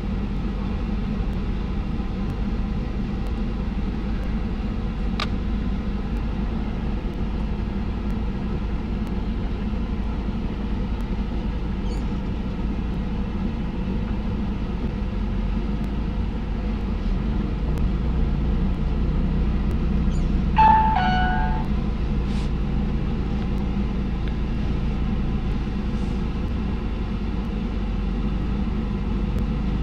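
Car engine running steadily, heard from inside the cabin, its note rising a little past the middle. About twenty seconds in there is a brief pitched tone that steps down once.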